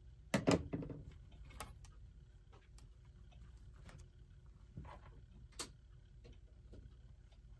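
A handful of sharp clicks and knocks a second or so apart, irregular rather than a steady tick, from the electric alarm clock's movement and power cord being handled as it is plugged in.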